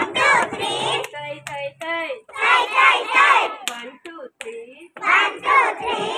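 A group of young girls chanting and singing together in unison, in short loud phrases with brief pauses between them, with a few sharp taps in the gaps.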